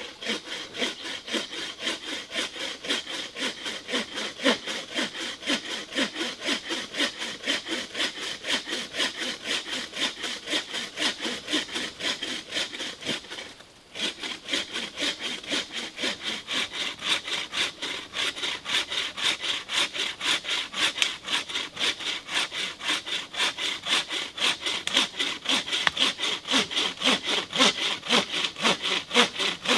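Handmade wooden buck saw (frame saw) cutting through a log with steady back-and-forth strokes, about three a second. The strokes break off briefly about halfway and then resume.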